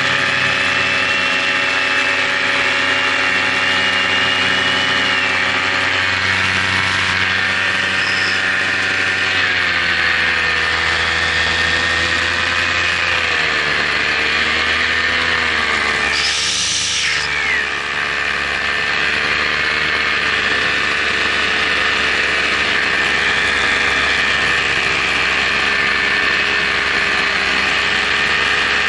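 Paramotor engine running steadily in flight. Its pitch sags and climbs back just before the middle, and there is a short rush of noise just past halfway.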